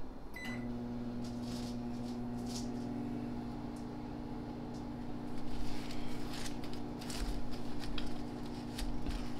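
A steady low electrical hum of several held tones sets in about half a second in. Over it, in the second half, comes light crinkling of a foil burger wrapper being handled and opened.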